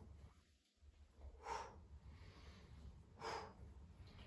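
A man's short, faint breaths, twice, about 1.5 and 3.3 seconds in, in time with the effort of seated twisting crunches.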